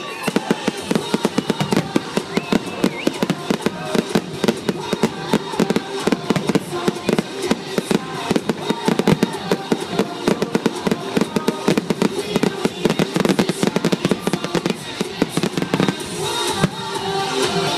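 Fireworks going off in rapid succession: many sharp bangs and crackling pops a second. Music rises under them near the end.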